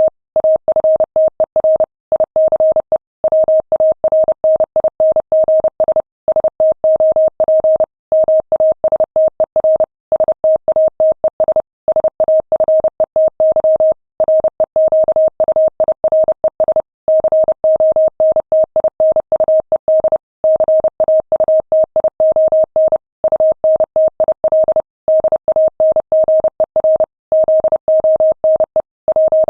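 Morse code sent at 30 words per minute as a single steady tone keyed on and off in rapid dots and dashes, with short pauses between words.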